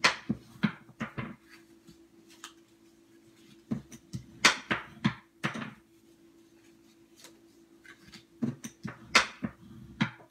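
Cardstock being folded along its score lines and creased with a bone folder: three spells of short crackling rubs and taps of paper, with a faint steady hum under them.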